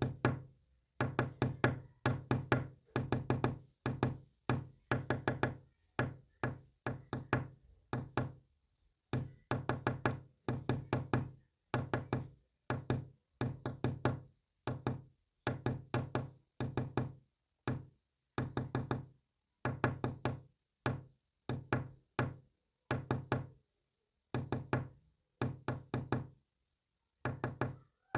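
Rapid knocking in short groups of several quick knocks each, with brief silent pauses between the groups, keeping up a steady stop-start rhythm throughout.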